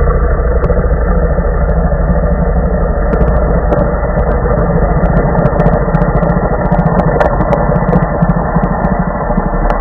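A loud, steady low rumble like an idling engine, muffled with the highs cut off, made as an edited sound effect.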